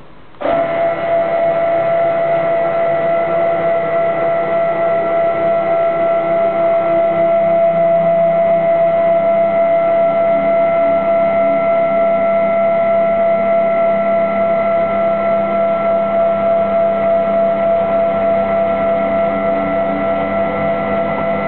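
Large 12.5 Nm stepper motors of a gantry CNC milling machine driving its axes at a steady feed: a steady high whine with a lower hum beneath, starting suddenly about half a second in.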